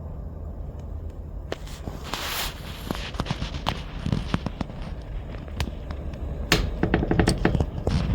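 Snow crunching and crackling: irregular sharp clicks, with a quick run of them about six and a half seconds in, over a steady low rumble.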